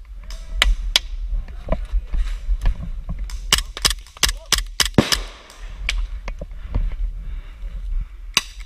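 Airsoft pistols firing in a gunfight: sharp snapping shots, single ones at first, then a quick string of about eight shots between about three and a half and five seconds in, and one more near the end, among them a CO2 gas-blowback pistol firing close by.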